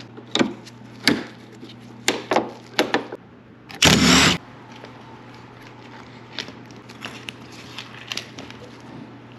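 Hand tools and trim pieces being worked on a car tailgate: a run of sharp clicks and knocks, a loud noisy burst about half a second long about four seconds in, then lighter ticks, over a steady low hum.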